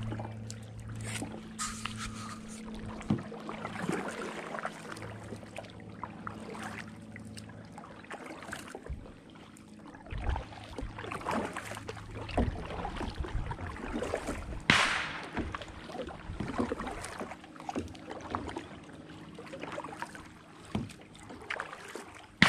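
Kayak paddling: the paddle blades dipping and splashing, with water dripping, at an irregular pace. One sharper, louder noise stands out about fifteen seconds in.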